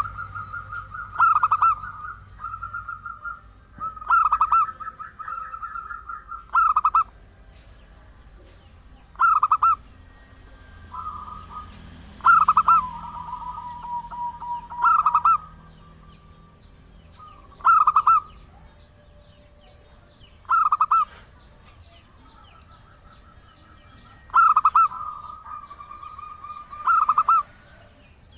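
Female zebra dove (perkutut) cooing as a lure call to draw in males: short loud stuttering coos repeated every two to three seconds, with softer drawn-out notes between some of them.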